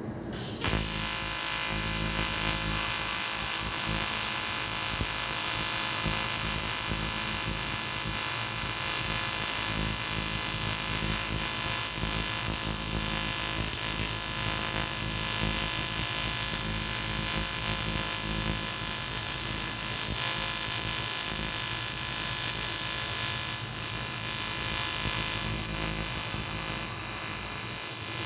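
AC TIG welding arc on an aluminium motorcycle cylinder block: a steady electric buzz with a high hiss. It strikes about half a second in, holds as one continuous run, and cuts off just before the end.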